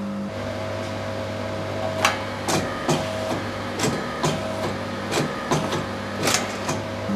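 Irregular metallic clicks and clinks, about a dozen over five seconds, from the Morsø picture-frame guillotine's mechanism, over a steady electric hum.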